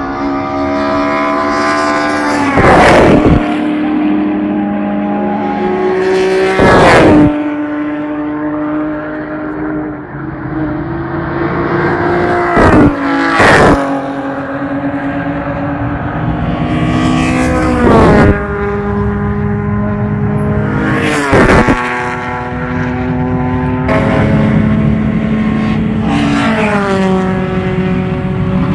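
Historic race cars passing one after another at full speed, each engine note dropping in pitch as it goes by. There are about six loud passes, two of them close together about 13 seconds in, with other engines still running between them.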